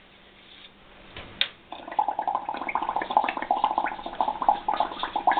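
Blowing through a drinking straw into a cup of soapy bubble paint: rapid, steady bubbling that starts a little under two seconds in, after a single light click.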